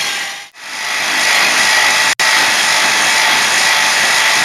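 Reciprocating saw running and cutting through a steel wheel stud, a steady rasping with a faint whine. It dies away and starts up again about half a second in, and cuts out for an instant about two seconds in.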